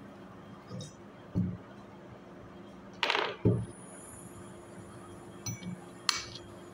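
Metal clinking and knocking as the clutch plate of a car AC compressor is handled and refitted: a few soft knocks, a loud metal clatter about three seconds in, and a sharp ringing clink near the end.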